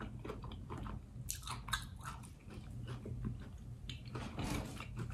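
Close-up chewing of a mouthful of fried chicken pot pie egg roll, with irregular soft crunches.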